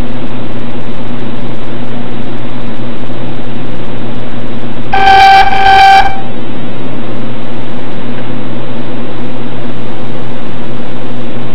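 Old hard drive making odd sounds: a loud steady hiss and hum, with two short, pitched beeps back to back about halfway through.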